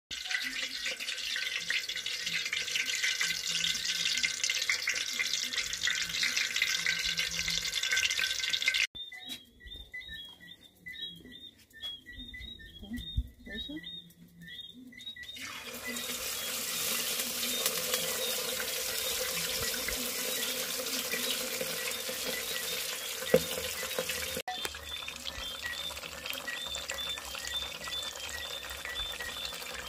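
Fish and potato wedges frying in hot oil in a pot over charcoal, a steady crackling sizzle. The sizzle starts loud, drops away for several seconds, and grows loud again about fifteen seconds in, once the fish is lowered into the oil. A faint, evenly repeated high chirping sounds in the quieter stretches.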